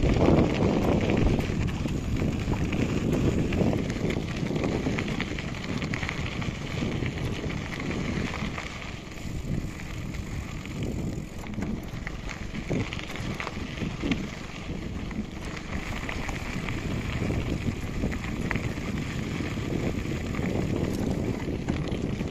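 Steady wind noise on the microphone over the rolling rumble of a bicycle being ridden.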